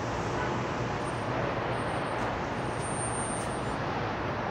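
Steady hum of city traffic rising from the streets below a high-rise balcony, an even rush of noise with no single vehicle standing out.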